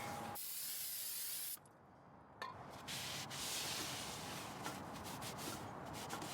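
Aerosol spray can hissing in a burst of about a second that cuts off sharply. A second, softer hiss comes about three seconds in, followed by a few light clicks near the end.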